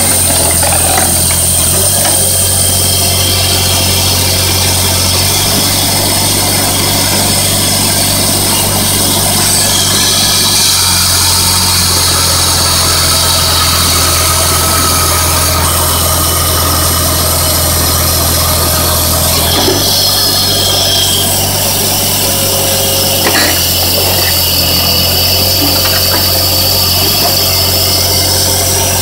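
Engine of a homemade firewood processor running steadily to drive its hydraulics, with a saw cutting through a log in the middle stretch.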